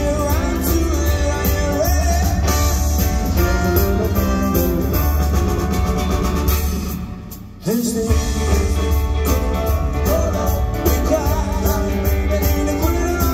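Live band playing retro swing and rock 'n' roll with singing, guitar and a heavy bass line. About seven seconds in the music briefly drops away, then the full band comes back in abruptly.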